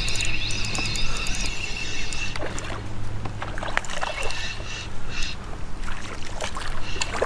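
Water splashing and scattered clicks and knocks at a kayak as a hooked smallmouth bass is brought alongside and landed. A steady high whine runs through the first second and a half.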